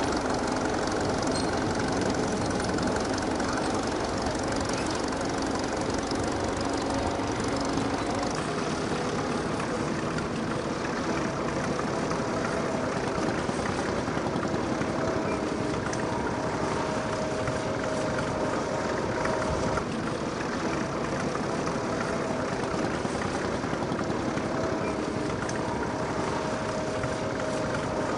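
Vintage tractor engine running steadily at an even speed.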